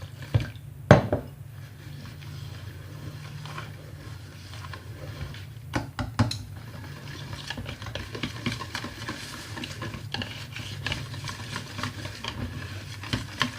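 A utensil beating flour-and-water batter in a bowl, with quick clinks and scraping against the bowl. A sharp knock comes about a second in and a couple more around six seconds in.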